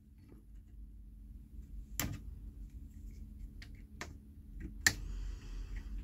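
Utility knife scraping dried old glue off the edge of a wooden furniture part: a few sharp clicks of the blade, the loudest about five seconds in, then a soft scraping.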